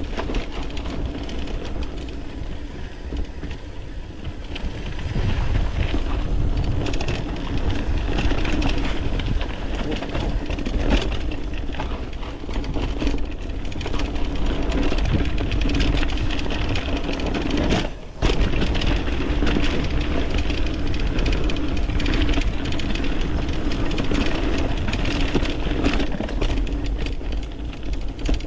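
Mountain bike riding down a rough dirt trail: steady tyre rumble with rattles and knocks over the ground, cutting out for a moment about two-thirds of the way through.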